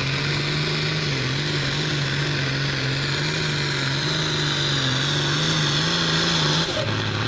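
Limited Pro Stock pulling tractor's turbocharged diesel engine running hard under load as it drags the pulling sled, one loud, steady engine note. The note suddenly drops lower about 6.7 seconds in.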